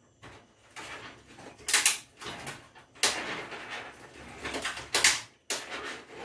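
Stiff plastic egg tray being forced open by hand, crackling and snapping in several sharp bursts; the tray is too hard to open easily.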